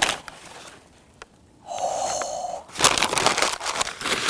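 Brown kraft-paper plant sleeve crinkling and rustling as a potted plant is slid out and the paper is handled, with a sharp crackle at the start and a dense run of rustling in the last second and a half. In between comes a steady tone about a second long.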